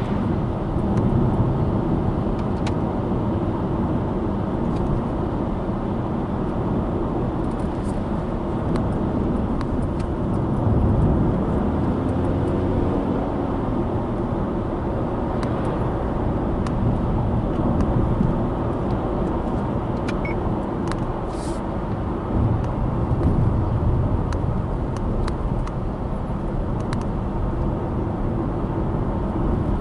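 Subaru Impreza Sport's 1.6-litre FB16 flat-four and its tyres on the road, a steady driving rumble heard from inside the car, with a faint engine tone that rises and falls briefly about halfway through and a few light ticks.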